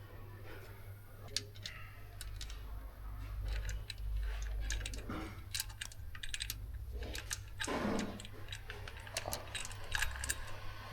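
Scattered light clicks and taps of tools and small parts being handled during engine work, with a duller knock about eight seconds in, over a steady low hum.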